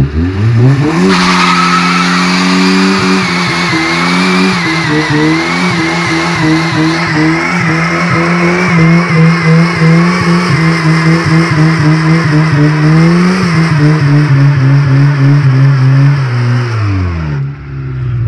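Honda Civic doing a burnout: the engine revs up about a second in and is held high while the front tyre spins and squeals. Near the end the revs climb once more, then drop back to idle as the squeal stops.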